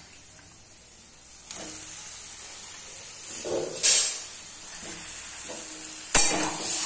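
Raw chicken pieces going into hot oil and fried spice paste in a kadai, sizzling. The sizzle starts about a second and a half in and flares louder twice, around four seconds and near the end.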